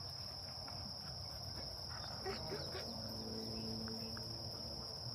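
Steady high-pitched trilling of insects such as crickets, with a faint low hum for a second or two past the middle.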